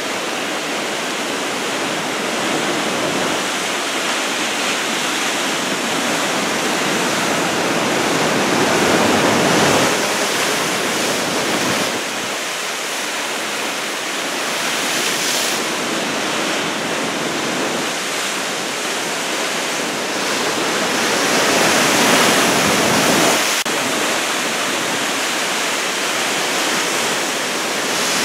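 Large typhoon-driven ocean surf breaking, a continuous rushing wash of waves that swells louder twice as bigger sets break.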